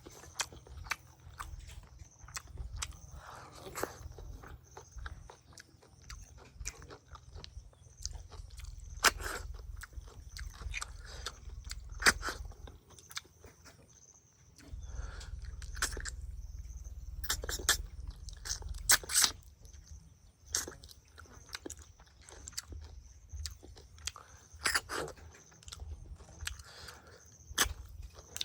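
A person eating close to the microphone: chewing with crunches and frequent, irregular sharp clicks, a few much louder than the rest.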